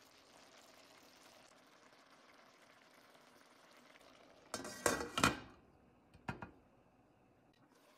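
Chicken simmering in tomato and orange sauce in a frying pan, a faint steady bubbling. About halfway through, a glass pan lid is set down on the pan with a clatter, followed by two lighter clinks about a second later.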